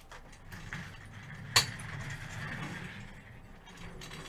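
Handling and movement noise with a low rumble, and one sharp knock about a second and a half in.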